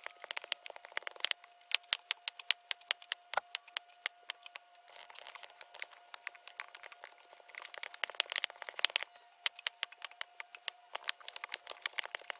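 Kinetic sand crunching and crackling as a bundle of wooden sticks is pressed down into it in a glass vase: a dense run of crisp clicks, thicker in patches, over a faint steady tone.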